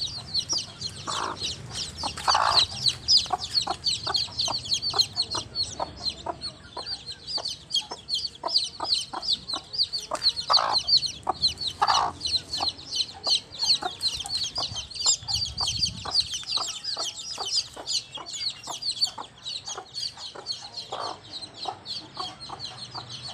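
A brood of young chicks peeping constantly, many short high falling peeps a second, over a mother hen's short, repeated clucks, with a few longer, louder calls now and then.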